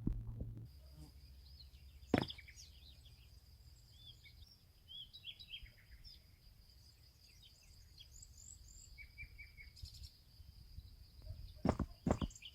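A low throbbing hum that stops under a second in, then small birds chirping in short, pitch-sweeping calls over a steady high-pitched tone. A sharp knock about two seconds in and a few more knocks near the end are the loudest sounds.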